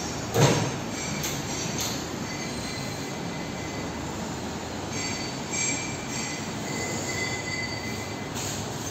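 Steady road-traffic noise with a heavy thump about half a second in, as a cardboard-boxed steel kitchen sink is set down. From about five seconds in, a high, thin squeal sounds for about three seconds and then stops.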